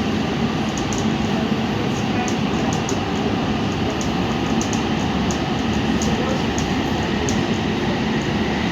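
Light-rail train running through the tunnel, heard from inside the car: a steady rumble of wheels and running gear, with scattered faint high ticks.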